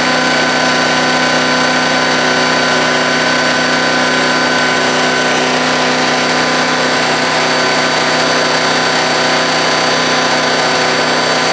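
Landworks wood chipper's engine running steadily at a constant pitch, with no chipping loads heard.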